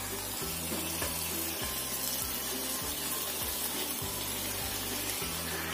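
Chicken in thick soy-sauce marinade sizzling in a non-stick grill pan as it is turned with a spatula, with background music and its bass line underneath.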